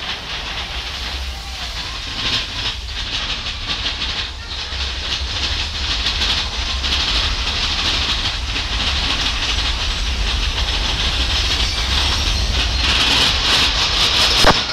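Mine train running on its rails: a steady low rumble with hiss and repeated clattering clicks of the wheels on the track, and one sharp clack near the end.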